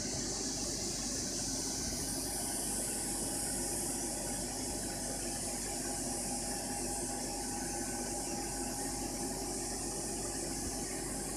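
Fiber laser marking machine running with a steady mechanical hum and hiss, which is most likely its cooling fan. The high hiss shifts slightly about two seconds in.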